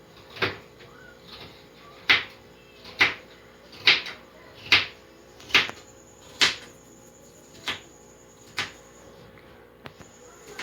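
Kitchen knife slicing through potatoes onto a cutting board, one sharp knock per slice, about one a second, nine in all.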